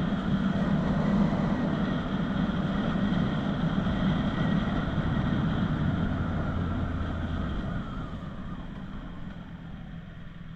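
CFMOTO 675NK inline three-cylinder motorcycle running on its stock catalysed exhaust while being ridden. The engine note drops and the noise grows quieter about eight seconds in as the bike slows.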